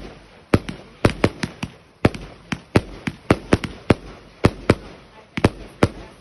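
Wedding fireworks display going off: a rapid, uneven string of sharp bangs, about three a second, each with a short rumbling tail.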